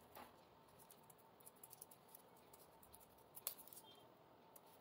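Faint snipping of scissors cutting folded colour paper into a petal shape: a run of small clicks, with a sharper snip about three and a half seconds in.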